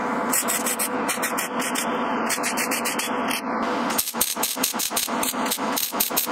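MIG welder arc crackling and sputtering as short tack welds are laid on a sheet-metal belt guard, a run of brief bursts that start and stop in quick succession.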